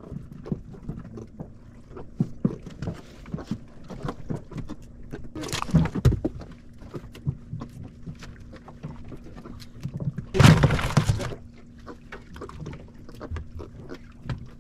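Knocks and thuds of freshly caught bonito and tackle being handled in the bottom of a small fibreglass fishing boat, with two louder bursts about six and ten seconds in, over a steady low hum.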